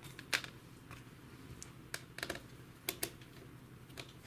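A handful of irregular sharp plastic clicks and taps as a laptop's plastic screen bezel is lifted off the display lid and set down, then a screwdriver is put to a hinge screw near the end.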